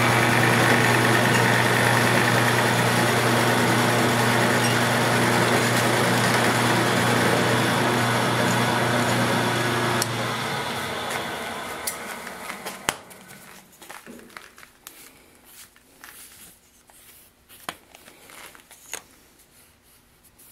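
Vertical milling machine face-milling a 6061 aluminum plate with a large face mill on a finishing pass: a steady, loud run with a low hum. About ten seconds in the spindle is switched off and runs down over a few seconds, leaving light clicks and taps as the machined part is handled.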